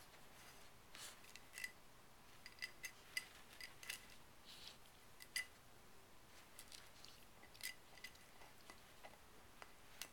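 Pit bull puppy gnawing a hard chew bone: faint, irregular clicks and scrapes of teeth on the bone, about a dozen scattered through.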